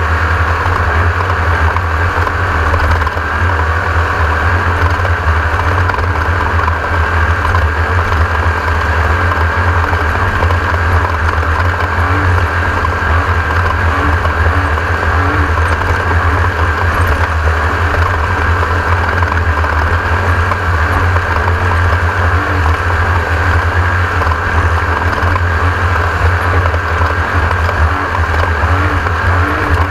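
Class 1600 off-road race car driving at speed: a loud, steady drone from its air-cooled VW flat-four engine and running gear.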